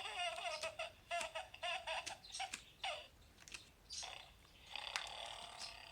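A baby's voice played from a pop-up book's electronic sound module: a string of short, high, wavering sounds for about three seconds, then quieter.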